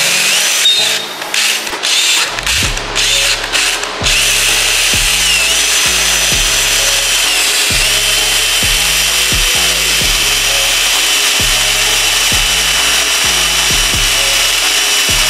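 Cordless drill boring a hole through a metal door-hinge bracket: a few short trigger pulses, then held running steadily for the rest of the time, its whine dropping a little in pitch twice. A steady low beat of background music runs underneath.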